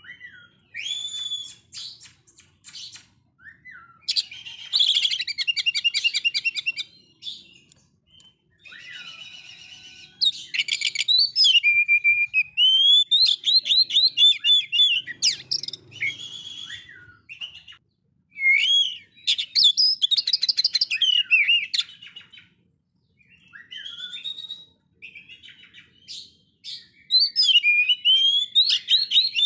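Oriental magpie-robin singing a loud, varied song of whistled notes that slide up and down, mixed with fast rattling trills and broken by short pauses.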